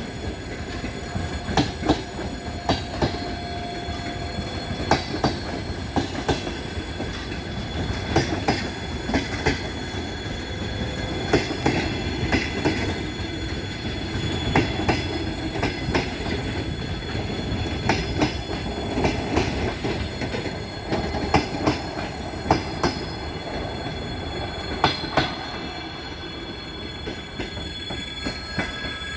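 Passenger train carriages rolling past at speed, their wheels clicking over the rail joints in a steady run of sharp clacks over a continuous rumble.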